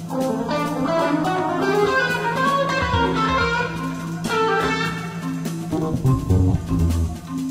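Jazz quintet music for bass clarinet, guitar, marimba, double bass and percussion. A guitar plays busy lines over a long held low note, with light percussion.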